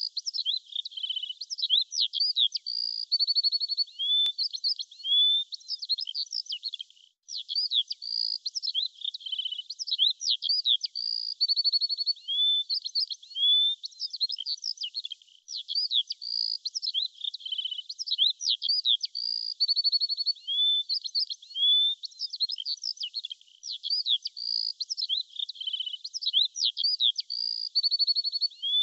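Birds singing: a busy run of quick chirps, short trills and whistled notes. The same sequence repeats about every eight seconds, with a brief break between repeats, like a looped recording.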